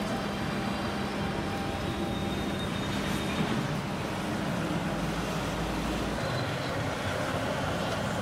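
Batter-coated chicken pieces deep-frying in a large iron kadai of hot oil: a steady sizzling.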